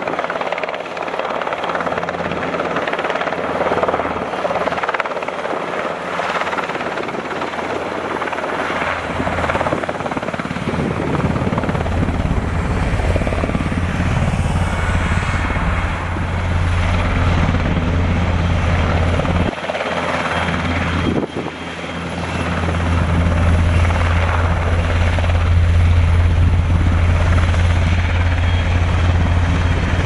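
NH90 naval helicopter's main rotor and twin turbine engines running close by as it hovers low. A steady, loud rotor hum that grows stronger about a third of the way in, with two brief drops in level about two-thirds through.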